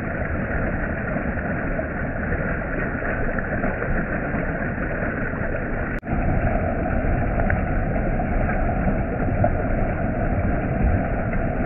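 Stream water rushing and splashing down a small cascade over rocks, a steady noise that breaks off for an instant about six seconds in and carries on a little louder.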